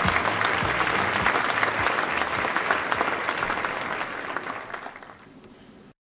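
Audience applauding, the clapping fading away over the last two seconds and then cutting off abruptly.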